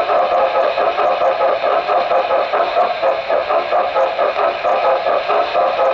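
HO-scale model steam locomotive running along the track, heard from a camera riding on the train: a steady mechanical whir with a fast, fine rattle of wheels and gears.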